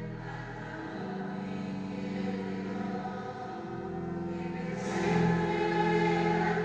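Slow church music of long held chords that change every second or two, growing louder about five seconds in.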